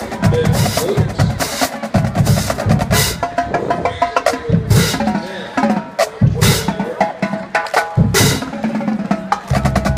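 Drums playing a rhythmic cadence, with snare drums and bass drums.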